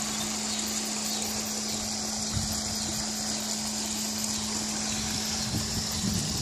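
Steady rushing and splashing of a small garden waterfall pouring into a pond, with a steady low hum underneath.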